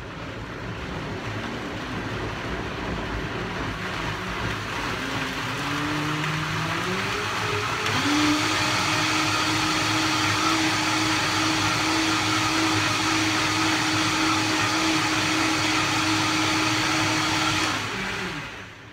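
Countertop blender puréeing a mango and red pepper dressing: the motor runs at a lower speed, climbs in pitch as it is turned up about seven seconds in, runs steady at high speed, then is switched off and winds down near the end.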